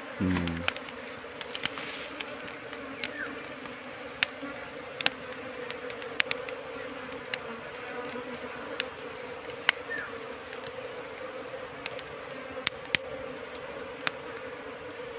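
A swarm of honey bees buzzing steadily around their nest as the colony is smoked and its comb taken out, with scattered sharp clicks over the hum.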